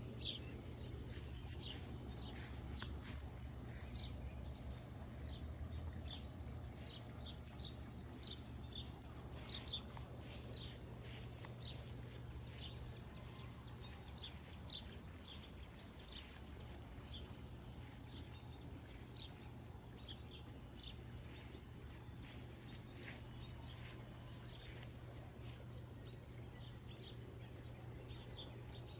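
Small birds chirping: many short, high chirps, busiest in the first ten seconds or so and sparser after, over a faint low steady hum.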